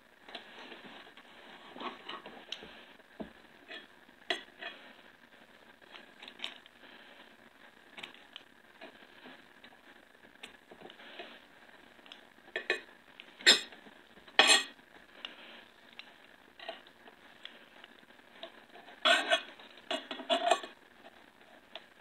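Kitchen knife scraping and tapping against a ceramic plate as a small fish is filleted. Scattered light clicks run throughout, with two sharp clinks about halfway through and a quick cluster of clinks near the end.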